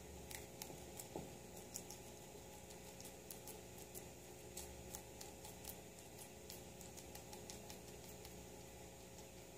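Guinea pig chewing leafy greens: faint, irregular crisp clicks, several a second.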